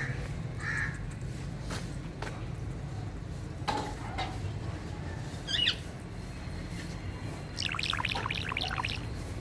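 Pet parrot calling: a few short chirps, one loud squawk about halfway through, and a quick run of chattering calls near the end.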